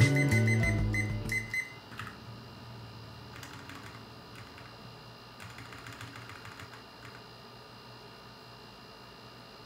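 Background music fading out in the first second or two, then short runs of faint key clicks from typing on a white RK61 mechanical keyboard.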